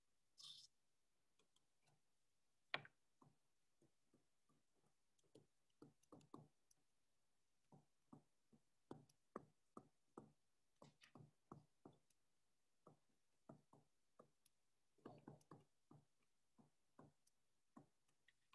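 Near silence with faint, irregular taps and clicks, one or two a second, from handwriting on a computer slide. A louder click comes about three seconds in.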